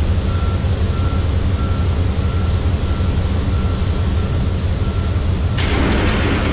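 Heavy diesel machinery engine running steadily, with a backup alarm beeping about one and a half times a second; the beeping stops about five seconds in, and a rushing hiss comes in near the end.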